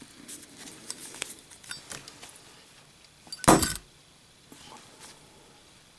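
Brass Zippo lighter being drop-tested: a few faint metal clicks from handling, then one sharp metallic clack with a brief ring about three and a half seconds in. The lighter passes the test.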